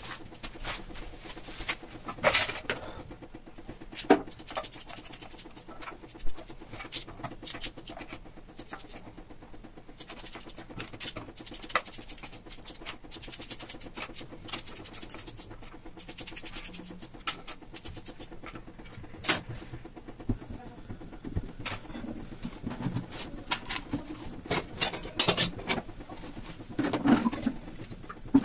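Scattered clicks and light clinks of a knife and steel utensils being handled while onions are cut on a steel plate, with a denser run of metal knocks near the end as the aluminium pressure cooker is opened.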